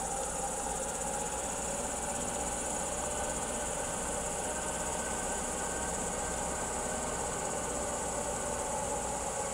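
Steady high-pitched chirring of grass insects, such as crickets, over a faint steady engine hum from a distant tractor that is approaching.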